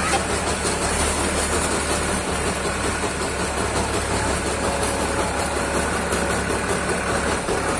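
Engine noise from a Powertrac tractor pulling a power tiller in tow, running steadily with no change in speed.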